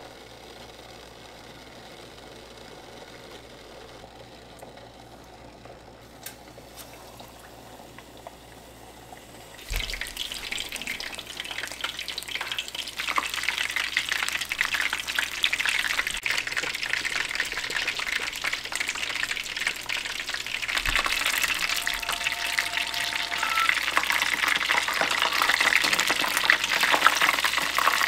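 Beer-battered burbot chunks deep-frying in a saucepan of hot oil, sizzling steadily. The sizzle starts suddenly about ten seconds in, when the battered fish goes into the oil, and grows louder around twenty seconds in.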